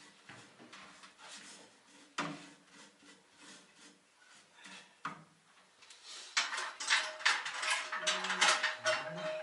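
Hard objects clinking and clattering, like dishes or metal being handled: a couple of single knocks, then a busy run of clinks in the last few seconds.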